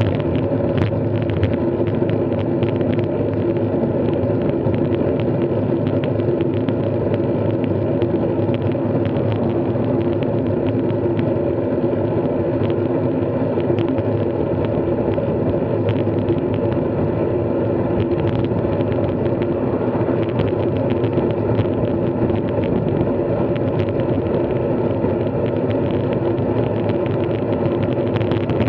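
Steady ride noise from a moving bike: a continuous, unchanging drone with rumble, as if travelling at a constant speed, with small scattered ticks.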